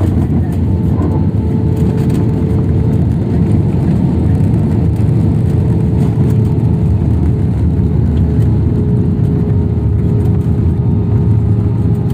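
Batik Air jet airliner landing: a steady, loud low rumble with a steady whine over it.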